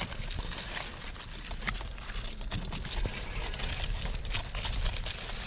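Road bicycle ridden over a rough, overgrown dirt trail: a steady low rumble with many small irregular clicks and rattles from the bike and tyres on the uneven ground.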